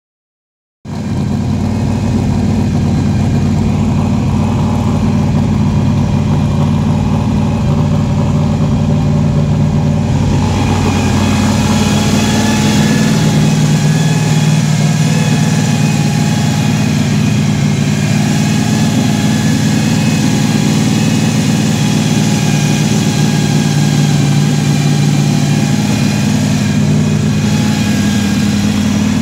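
Carbureted Chevrolet 4.3-litre V6 running steadily on its second break-in run, with the hood open. The sound comes in sharply about a second in.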